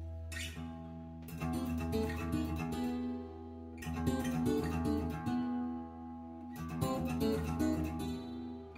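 Acoustic guitar music, strummed chords, played back over a pair of two-way bookshelf speakers during a listening test of their tweeter crossover capacitors. A steady low hum runs underneath.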